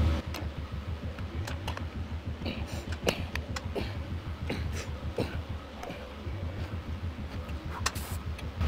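Seated leg-curl machine worked through slow reps: scattered light clicks and knocks from the weight stack and moving arm, over a low steady hum.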